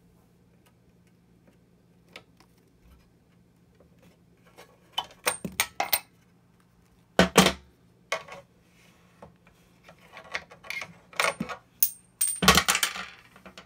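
A screwdriver and linesman's pliers tapping and twisting sheet-metal knockouts out of a Sol-Ark 12k inverter's bottom panel. Irregular sharp metallic clicks and clinks, some ringing briefly, with the loudest strike about seven seconds in and a cluster near the end.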